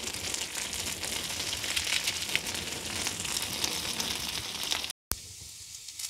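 Sliced potatoes sizzling and crackling as they fry in butter in a frying pan on a wood stove. The sound drops out for a moment about five seconds in, then the sizzling carries on a little thinner.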